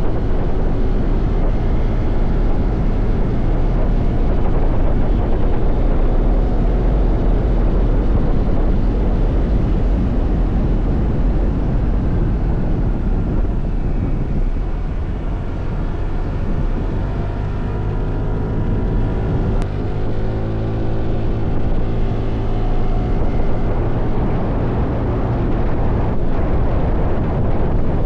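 Yamaha NMAX 155 scooter's single-cylinder four-stroke engine running through a MATI aftermarket exhaust, with a deep steady exhaust note. Its pitch slides up and down a few times around the middle, with wind noise on the microphone.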